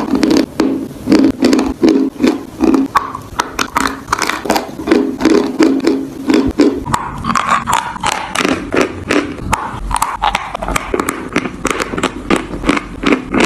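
Close-up chewing of chalk: dense, irregular crunching and crackling, several crunches a second.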